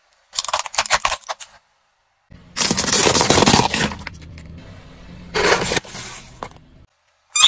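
A car tyre rolls over and crushes small plastic toys: several bursts of cracking and snapping, the loudest crunch about two and a half seconds in, with silent gaps between them.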